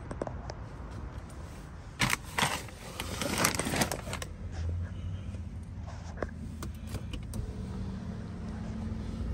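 Clicks, knocks and rustling from handling inside a car's cabin, loudest a couple of seconds in. A steady low hum starts about three-quarters of the way through, as the car's systems come on.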